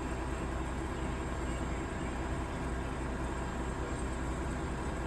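Steady low hum under an even hiss, unchanging, with no sudden sounds.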